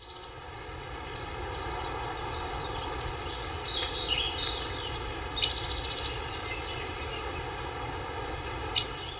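Steady rushing outdoor ambience, fading in at the start, with a few bird chirps and a short fast trill about four to five seconds in and a brief sharp chirp near the end.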